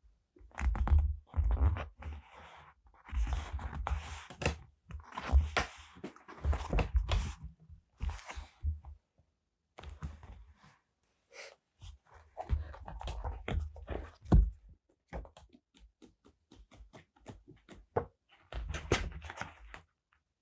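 Paper and stickers handled on a desk: rustling and crinkling in irregular bursts, with light taps and dull thumps against the desk.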